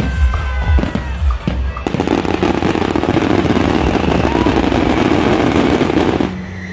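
Aerial fireworks bursting over background music: a few separate bangs at first, then from about two seconds in a dense, continuous crackle of many bursts that cuts off abruptly near the end, leaving only the music.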